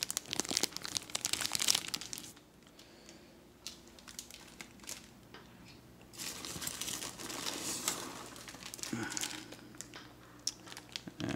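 Thin plastic shipping bags crinkling as they are handled and pulled out from among styrofoam packing peanuts. There are two spells of rustling, one at the start and a longer one from about six seconds in, with quieter handling between.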